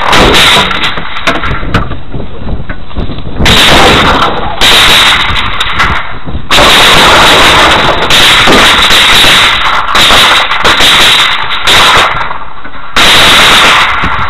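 Heavy, nearly continuous gunfire, loud enough to overload the dashcam's microphone, coming in long stretches with short lulls between them.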